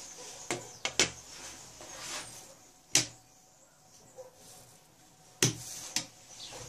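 Sharp clicks of the selector's Takamisawa signal relays switching inputs and outputs, together with the front-panel push button being pressed. There are about six clicks, single and in quick pairs, the loudest about a second in, near three seconds and just past five seconds.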